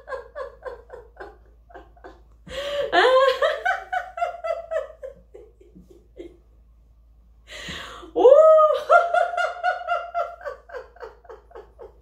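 A woman laughing in quick 'ha-ha-ha' pulses: deliberate laughter-yoga laughing. It comes in bouts that open with a sharp breath in and trail off. The loudest bout starts about eight seconds in.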